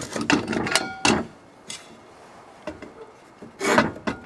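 Clattering and scraping of the parts of a homemade siren, the motor shaft and light fixture housing, being handled and fitted together. It comes in two bursts: one through the first second or so, with a few brief ringing tones, and a shorter one near the end.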